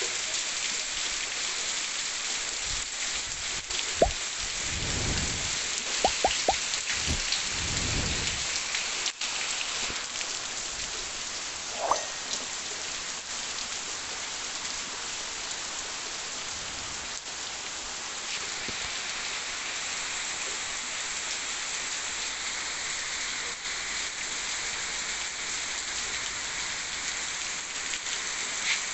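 Heavy rain pouring steadily onto trees and ground, a dense even hiss. A few low rumbles come between about four and eight seconds in, with a few sharp taps.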